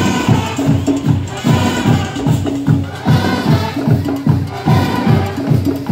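School marching band (banda de paz) playing: drums beat a steady, quick march rhythm of about two to three strokes a second under held melody notes.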